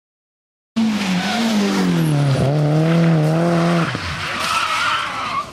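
Rally car engine running hard at high revs, its pitch dipping and rising with the throttle. The engine note cuts off abruptly about three seconds in, followed by tyre squeal and skidding noise.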